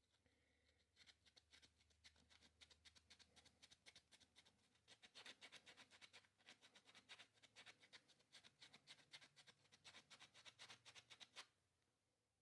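Faint hand sanding of a basswood handle: sandpaper rubbed in quick back-and-forth strokes, about five a second, starting about a second in and stopping abruptly near the end.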